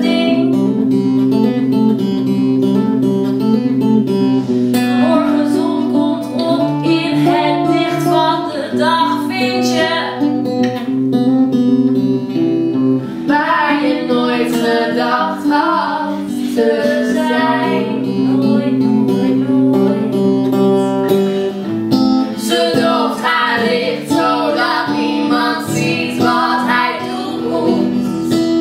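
Acoustic guitar played in a live song, with a singing voice joining in at times without clear words.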